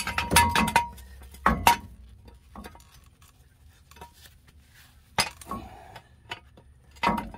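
Hand tools and brake caliper hardware clinking metal on metal while the rear brake caliper bolt is worked loose, a handful of separate sharp clinks with a short ring, the loudest at the start and about five seconds in.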